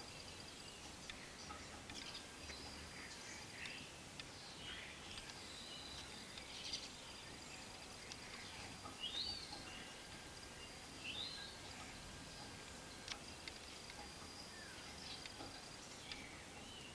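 Quiet outdoor ambience: small birds chirping now and then, two rising chirps standing out about halfway through, over a faint high steady trill that comes and goes.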